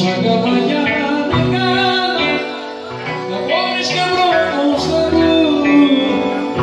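Live Greek Epirote folk dance music from a band led by clarinet, playing loud and continuous with ornamented, gliding melody lines.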